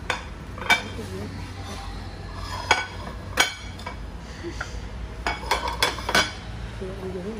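Japanese ceramic plates clinking against each other as they are handled and set down: a scattering of sharp, ringing clinks, with a quick run of them about five to six seconds in.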